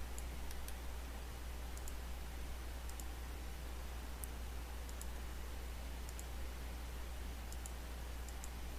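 Computer mouse buttons clicking, about a dozen short clicks scattered irregularly, several in quick press-and-release pairs. Under them runs a steady low electrical hum and hiss from the recording.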